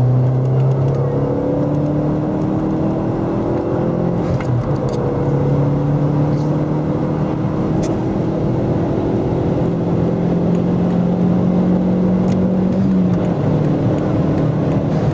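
Seat Leon's 1.8-litre 20-valve turbo four-cylinder running under way with its freshly rebuilt turbo. The engine note rises slowly and changes pitch about four seconds in and again near the end, as in acceleration and gear changes.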